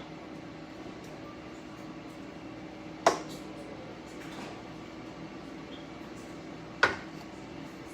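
Air fryer running with a steady hum, and two sharp knocks of a cooking utensil against the skillet, about three and seven seconds in.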